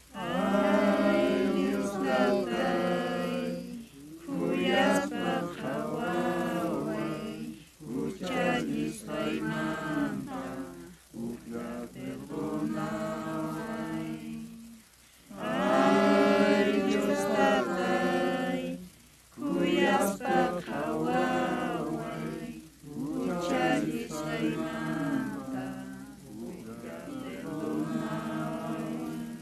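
People singing a prayer hymn unaccompanied, in held phrases a few seconds long with short breaks for breath between them.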